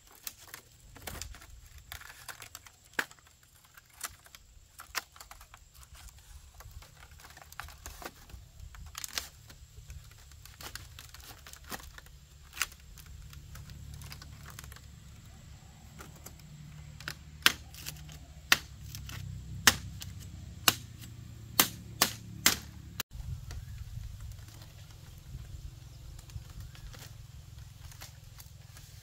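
Irregular sharp knocks, a few scattered at first, then a quicker run of about eight loud ones in the second half, over a low rumble that cuts off abruptly near the end.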